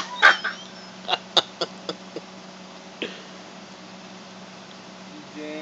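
Chihuahua chewing bubble gum with its mouth opening and closing: a quick run of sharp, wet mouth smacks and clicks in the first two seconds, then one more about three seconds in.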